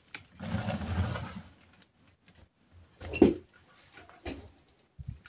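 Handling noises: a scraping rustle, then a sharp knock about three seconds in, followed by a few lighter clicks and a low thump near the end.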